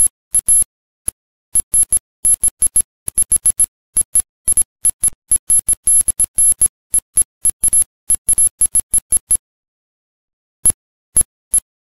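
Rapid, irregular high-pitched electronic beeps or chirps, each short and alike, separated by dead silence, with a pause of a little over a second near the end.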